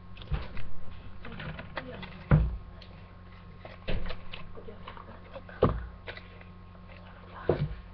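A handful of short, dull thumps and knocks, about one every one and a half to two seconds, with fainter clicks in between.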